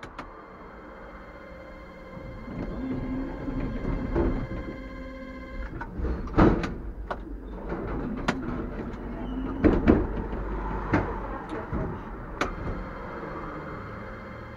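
TW6000 tram standing at a stop, its onboard equipment humming steadily with several fixed tones. Several sharp knocks and clunks come through between about halfway and near the end.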